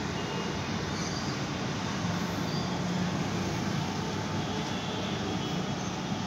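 Steady low rumble of distant city traffic, with no distinct events.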